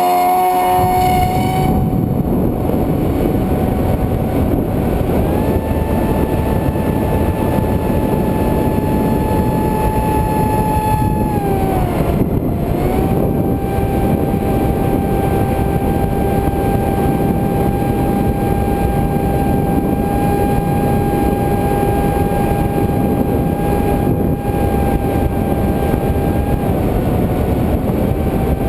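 Multiplex FunJet model jet's electric motor and pusher propeller whining steadily in flight, with wind rushing over the microphone. The whine steps up in pitch about five seconds in, drops about twelve seconds in, and dips briefly near the end as the throttle changes.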